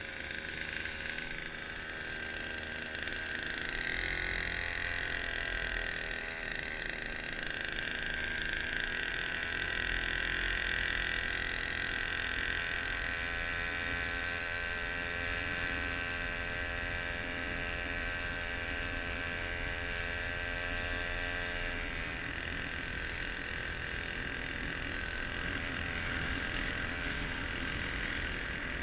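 Small outboard motor running steadily, with a more even pitched hum in the middle of the stretch.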